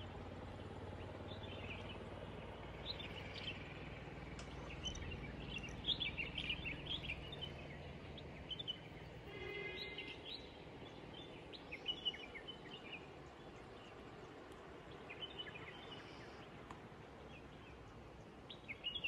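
Open hillside ambience: scattered bird chirps and short calls come and go over a faint, steady low background noise.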